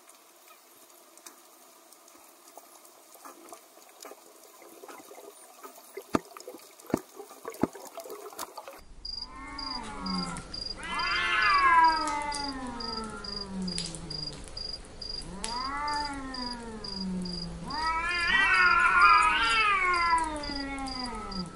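Domestic cats meowing: long, drawn-out calls that rise and then fall in pitch, repeated about every two seconds and sometimes overlapping, starting a little under halfway through. Before that there is only a faint hiss with a few sharp clicks.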